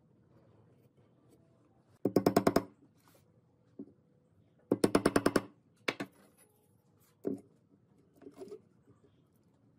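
Hammer driving small nails into a wooden beam: two quick runs of rapid, evenly spaced strikes about three seconds apart, followed by a few lighter single knocks.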